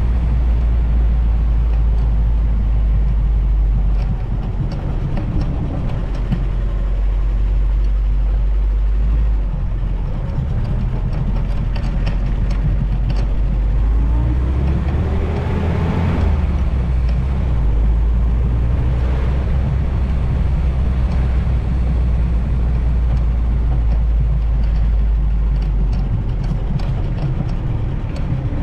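Vintage Willys Jeep driving open-topped: engine running and road noise, with a heavy low wind rumble on the GoPro's foam-buffered microphone. Around the middle, the pitch briefly rises and falls.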